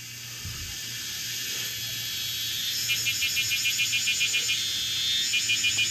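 Forest background with a steady high-pitched insect buzz. From about three seconds in, a small animal gives a fast pulsed chirping call, roughly six pulses a second; it breaks off briefly and starts again near the end.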